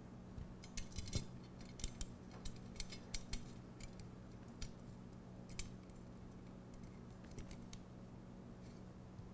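Small metal clicks and clinks of M3 hex cap bolts and hardware being handled and started by hand into an end cap on an aluminium C-channel. There is a quick run of about a dozen sharp clicks in the first half, then only a few.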